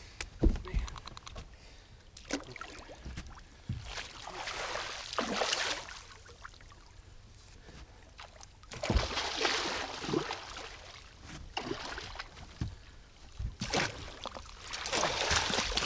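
A hooked muskie thrashing and splashing at the surface right beside a fishing boat as it is fought to the net, in several bursts of splashing, with a few dull knocks against the boat.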